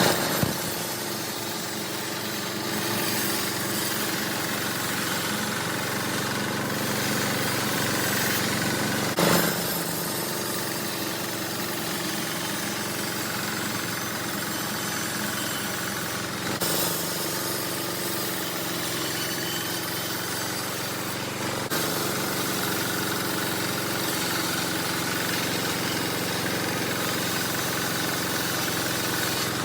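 Homemade band sawmill running with a steady mechanical drone, with a brief louder knock about nine seconds in and two smaller ones near seventeen and twenty-two seconds.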